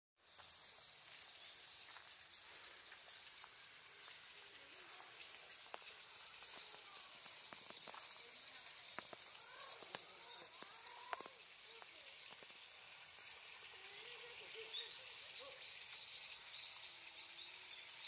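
Faint outdoor ambience: a steady high hiss with a few soft clicks, faint voices, and brief bird chirps near the end.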